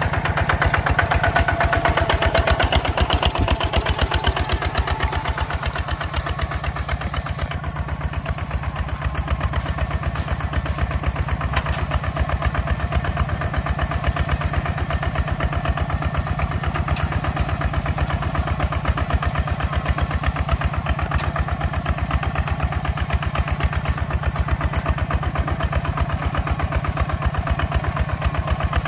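Two-wheel walking tractor engine running steadily with a rapid, even chug. It is somewhat louder and brighter for the first several seconds, then settles slightly.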